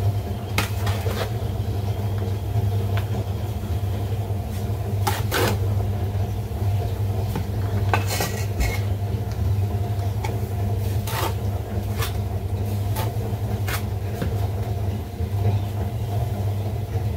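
Steel bricklaying trowel scraping and clinking against mortar, a plastic mortar bucket and clay bricks, about a dozen sharp clicks and scrapes spread through, over a steady low mechanical hum.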